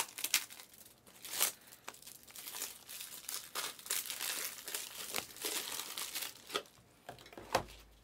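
Plastic wrapper of a trading card pack crinkling and tearing as the pack is opened by hand, in irregular crackles, with a sharper knock near the end.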